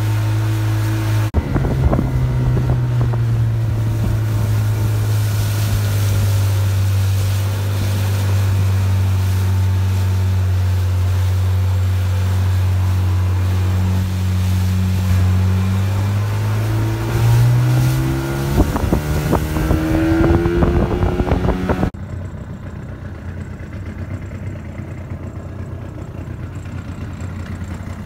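Small motorboat's engine running steadily under way. Its pitch rises and wavers about two-thirds of the way through, then the sound drops abruptly to a quieter, lower running, like throttling back to idle, near the end.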